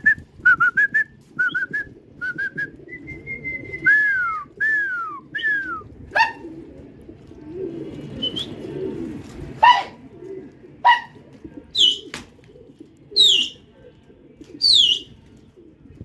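A run of short whistled notes, rising at first and then a few falling, followed by a few sharp chirps and, near the end, several high, quickly falling calls, all over a low steady rumble.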